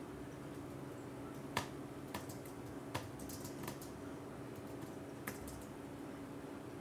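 Computer keyboard being typed on: a few separate keystrokes with a quicker run of taps a little past the middle.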